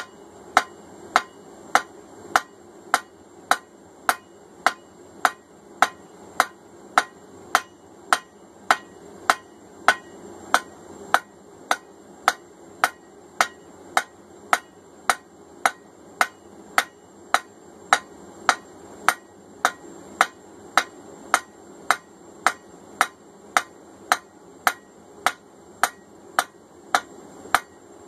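Hand hammer striking red-hot 3/4-inch steel rebar on an anvil in a steady rhythm, just under two blows a second, each blow with a short metallic ring, as the bar is drawn down to a taper. A faint steady hum runs underneath.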